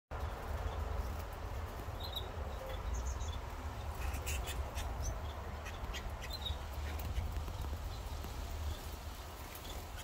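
Young canaries in a cage giving short, scattered chirps, with a few sharp clicks, over a steady low rumble.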